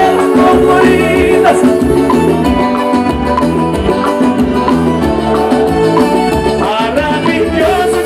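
Live forró band music over a PA: accordion playing held notes over a steady dance beat.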